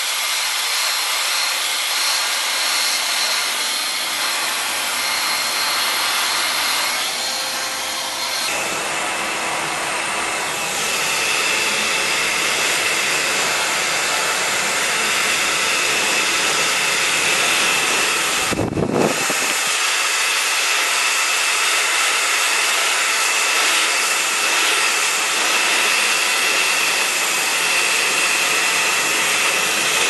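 Handheld hair dryer blowing steadily, a loud rush of air with a faint high whine, as it dries wet hair through a vent brush. A little past halfway there is one brief low thump.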